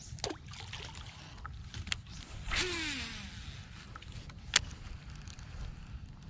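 A fishing rod swishes through a cast with a baitcasting reel. The reel's spool whirs as line pays out, its pitch falling as the spool slows. A single sharp click follows about four and a half seconds in.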